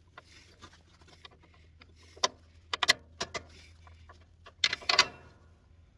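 Scattered metal clicks and clinks of a bolt being fitted into a truck's motor mount: a single click about two seconds in, a few more near three seconds and a louder cluster near five seconds.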